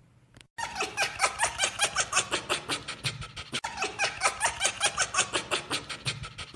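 Young arctic fox calling at the camera: a fast, steady chatter of short high yelps, about five or six a second, starting about half a second in.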